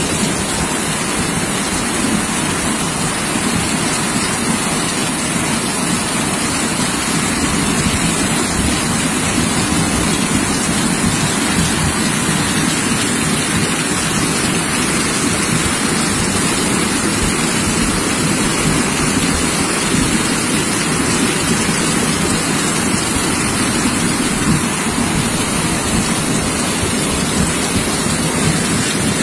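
Heavy rain pouring down together with the rushing of brown floodwater flowing fast down a street during a flash flood, a steady, unbroken rush of water.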